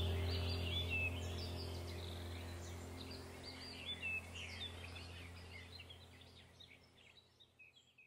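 Small birds chirping and singing in quick, twittering phrases over a steady low hum, the whole sound fading out gradually toward the end.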